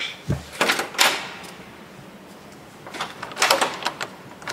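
A wooden door with a round metal knob being handled: a low thump just after the start, sharp clicks of the latch and knob around one second in, and another run of clicks about three and a half seconds in.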